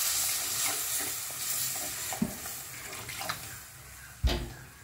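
Hot spice masala sizzling as water is poured in, the sizzle loudest at first and dying down over a second or two, while a steel spoon stirs and scrapes the pan. One sharp knock near the end.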